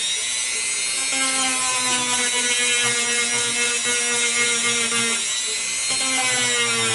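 Corded handheld rotary tool grinding a part, a steady high whine whose pitch sags slightly now and then as the bit bears on the work.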